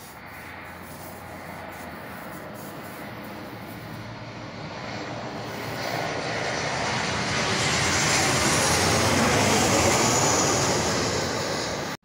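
Jet engines of a twin-engine airliner flying low overhead, a steady roar that grows louder as the plane approaches. A high whine falls in pitch at the loudest point near the end, then the sound cuts off suddenly.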